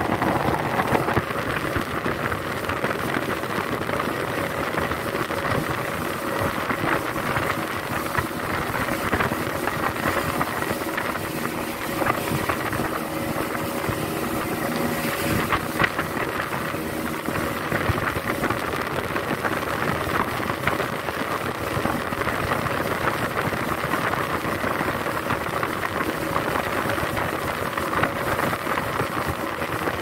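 A 75-horsepower speedboat's outboard motor running steadily at cruising speed, with water rushing past the hull and wind on the microphone.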